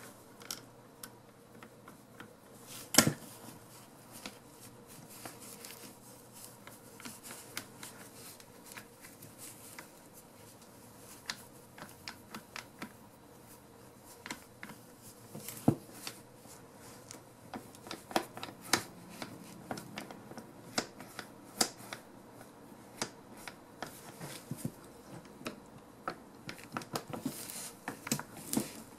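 Irregular clicks and light taps of small metal parts being handled while a torque wrench's ratchet head is worked apart and fitted back together, with sharper clicks about 3 seconds in and near the middle.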